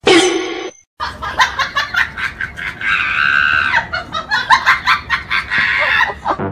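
Laughter in quick pulses, with a high shrieking stretch in the middle, after a short burst of noise and a brief gap at the start.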